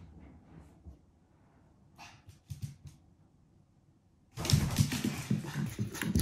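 Mameshiba puppy on a wooden floor: a few faint short sounds at first, then, about four seconds in, much louder close-up sounds of it running toward the camera, paws and claws on the floorboards.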